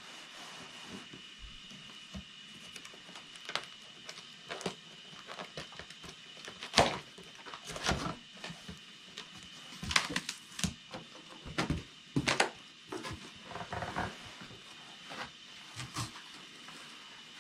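Cardboard shipping box being opened and unpacked by hand: irregular scrapes, rustles and knocks of cardboard flaps and packaging, busiest in the middle, as the contents are pulled out.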